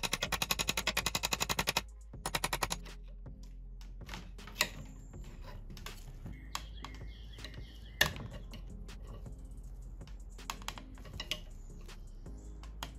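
Quick light hammer taps on a steel pin punch, driving the impeller key out of an outboard's driveshaft, about eight taps a second until about two seconds in, then a short second run of taps. After that, a few scattered single metal clicks and knocks.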